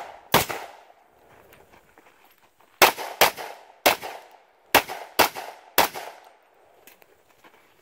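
Pistol fired seven times: a single shot, then after a pause of about two seconds six more in quick succession, each followed by a short echo.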